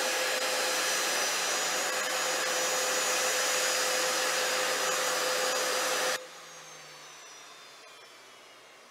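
Jet engines of the taxiing VC-25A (Air Force One, a Boeing 747): a loud, steady rush with a steady whine. About six seconds in, the sound drops abruptly to a much quieter level, and a high whine slides down in pitch.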